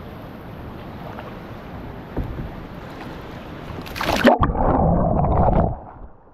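Rushing whitewater and wind on the microphone as a kayak runs a rapid. About four seconds in there is a loud splash, followed by a loud, muffled rush of water for over a second before it eases.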